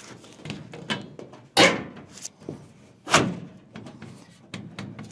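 Metal furnace filter-access cover being knocked and pushed into place on its ridges: two loud bangs about a second and a half apart, with lighter clicks and scraping between them.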